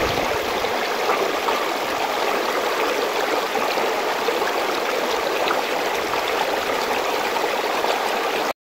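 Meltwater stream rushing over rocks from under a snow bridge: a steady, even rush of water that cuts off suddenly at the very end.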